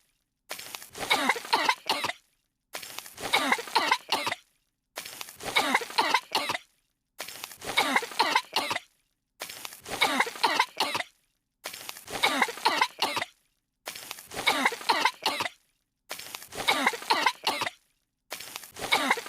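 Two cartoon girls' voices coughing and hacking on dust, the same short clip looped: a fit of coughing about every two seconds with a brief silence between each repeat.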